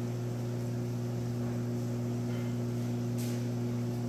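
Steady low electrical hum, with a faint click about three seconds in.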